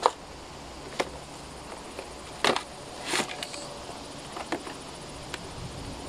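Scattered knocks, taps and a short scrape from a boxed hose reel being handled and set on a wooden table, the loudest knock about two and a half seconds in.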